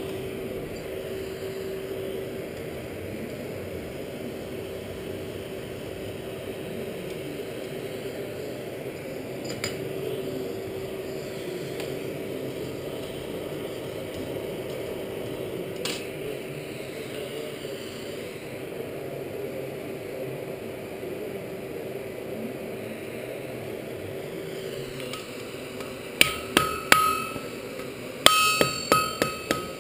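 Coal forge's air blast running as a steady rush with a low hum that fades out late on. Near the end, quick runs of hammer blows on a steel anvil, each ringing, as hot tong stock is forged.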